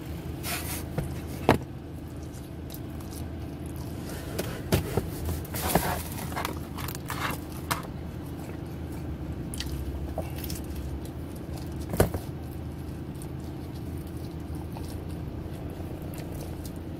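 Someone eating a pizza crust: scattered chewing and scraping sounds over a steady low hum. Two sharp clicks stand out, about a second and a half in and about twelve seconds in.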